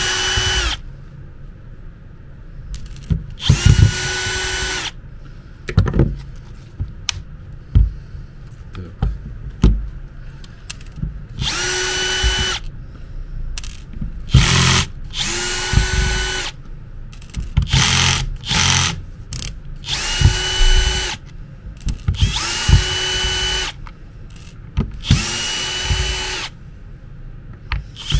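Cordless drill-driver running in about eight short bursts of roughly a second each, the pitch rising as the motor spins up, backing the housing screws out of a Makita DDF485 drill. Small clicks and knocks of handling come between the bursts.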